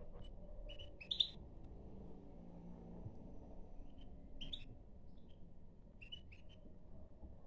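European goldfinch giving short high chirping calls in a few small clusters, the loudest about a second in.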